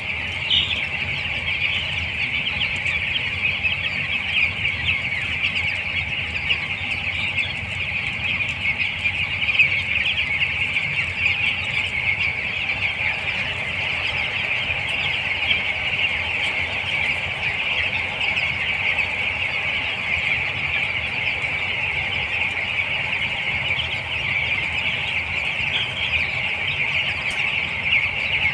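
A large flock of chicks about twelve days old peeping continuously in a dense, high-pitched chorus, with a steady low hum underneath.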